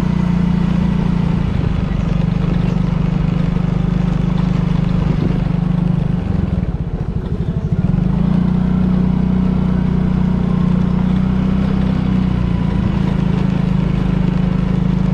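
Motorcycle engine running steadily under way, a low even hum. About six seconds in it drops into a slower pulsing for a second or two, then steadies again.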